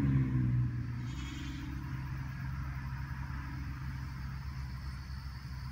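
A steady low mechanical hum that is fuller and louder for about the first second, then drops and runs on evenly.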